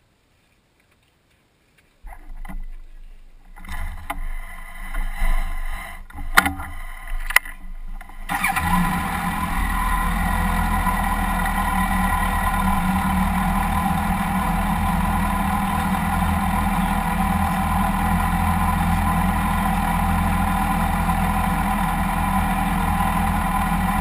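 Near silence at first, then a few knocks and sharp clicks; about eight seconds in a motorcycle engine catches and settles into a steady idle.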